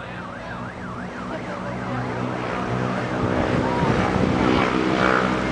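An emergency-vehicle siren yelping in fast rising-and-falling sweeps, fading out within the first second or two, followed by a vehicle engine running and getting louder.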